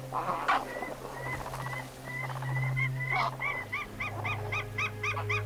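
White-tailed eagle (sea eagle) calling: a series of short yelping notes, faint at first, then louder and quicker at about four a second from around halfway in, over a low steady drone.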